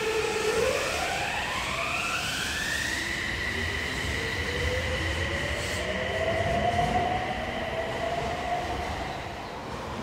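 Toei 6300-series subway train accelerating away from the platform, its Mitsubishi IGBT-VVVF inverter whining: the tones climb steeply over the first three seconds and then hold steady, while a lower tone keeps rising slowly, over the rumble of the running train.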